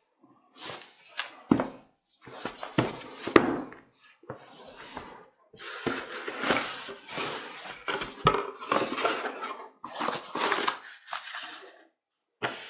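Cardboard graphics card box handled in gloved hands: the cardboard rubs and scrapes, with several sharp knocks as it is set down and its lid is lifted off the foam insert.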